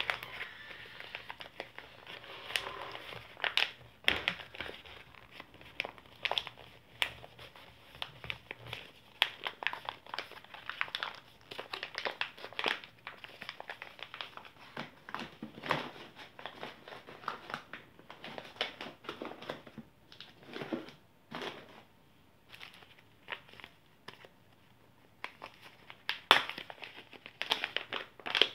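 White stand-up packaging pouches crinkling and rustling as they are pulled open and handled, in irregular crackles with a quieter stretch about two-thirds of the way through.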